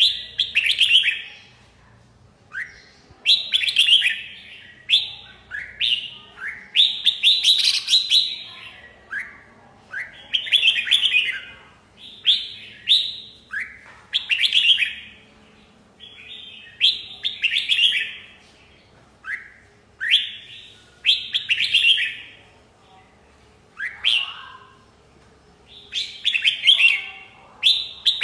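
Red-whiskered bulbul singing: short, bright, whistled phrases repeated every second or two, with brief gaps between them.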